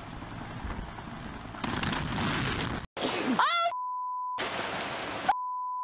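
Two censor bleeps, a steady tone about half a second long each, blank out a person's words. Before them comes a short shout. Between and before the bleeps runs a steady rushing noise: ice breaking away from a glacier face.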